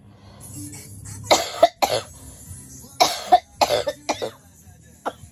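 A woman coughing repeatedly: a bout of three coughs, then a bout of four, then a single short cough near the end.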